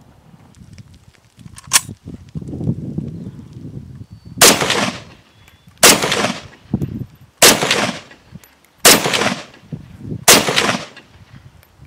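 Five semi-automatic shots from an SKS carbine in 7.62×39mm, about a second and a half apart, each followed by a short echo. A single sharp click comes a couple of seconds before the first shot.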